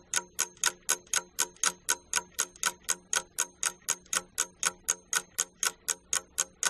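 Ticking clock sound effect, about four sharp, even ticks a second, marking the time allowed for a quiz answer.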